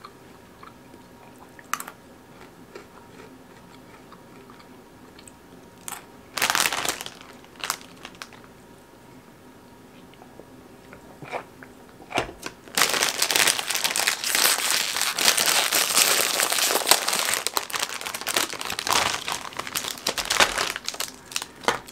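Crunchy Pocky stick being chewed with scattered small crunches. About halfway through comes a long stretch of loud crinkling and crackling from a plastic snack wrapper being handled.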